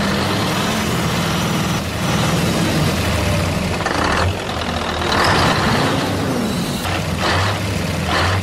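Truck engine sound running steadily with a low hum, under a toy log truck driving through mud. Several short noisy bursts come in from about four seconds on.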